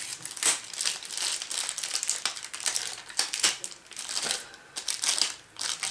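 Clear plastic wrapping crinkling as hands peel it off a packaged hammer head, in a run of irregular crackles.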